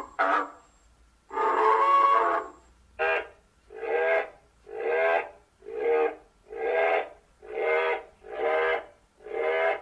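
Imagined hadrosaur calls built from goose, duck and sea lion recordings: a short honk, a longer drawn-out honk, then a steady series of eight short honks about one a second.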